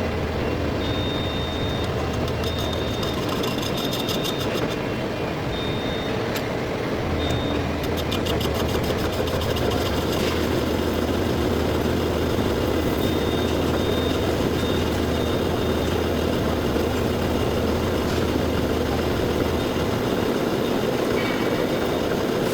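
Heavy-duty lathe running steadily while turning a large steel part, a constant low machine hum. A high thin tone comes and goes in short dashes, mostly in the first few seconds and again about two-thirds of the way through.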